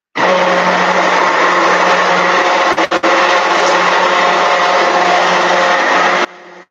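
Handheld stick blender running in a small cup, mixing clay with water to break up lumps. It runs loud and steady, cuts out twice very briefly about three seconds in, and stops suddenly near the end, leaving a fainter steady hum.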